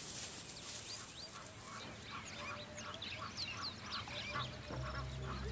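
Birds calling: many short, quick, overlapping high calls, with music starting to fade in near the end.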